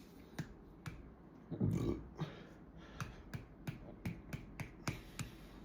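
A short, low release of gas about a second and a half in, followed by a run of small sharp clicks, about three a second.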